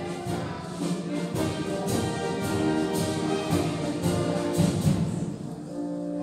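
Orchestral music with brass, held chords that change every second or so.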